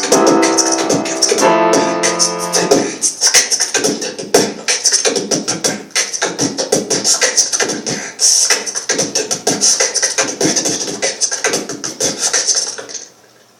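Live music: sustained chords for the first few seconds, then a fast rhythmic percussive beat with a hissing, hi-hat-like sound, which stops abruptly near the end.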